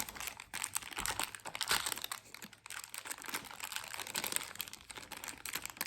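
Toy packaging being handled: plastic and cardboard crinkling and rustling, with many small clicks as it is opened.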